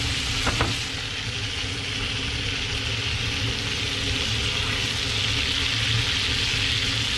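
Blackened cobia pieces sizzling steadily in a hot pan on the stove, over a steady low hum.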